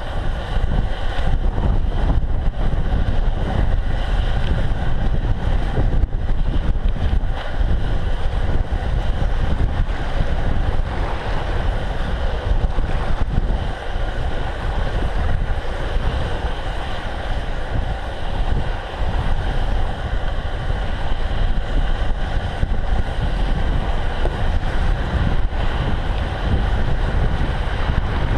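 Steady wind buffeting the microphone of a handlebar-mounted camera on a bicycle riding over snowy shoreline ground, with the rumble of the ride and occasional knocks from the bike.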